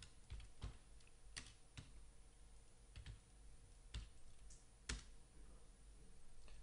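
Faint typing on a computer keyboard: scattered, irregular keystrokes in short runs, with a louder key strike about five seconds in.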